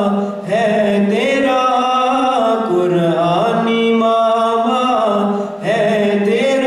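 A man singing unaccompanied into a microphone in long, drawn-out melodic phrases, with short breaths about half a second in and near the end.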